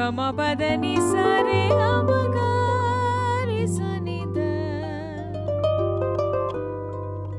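Harp plucking a melody in raga Charukesi over a steady low drone. Above it runs a sustained melodic line that glides and wavers in pitch, in the ornamented Indian classical manner.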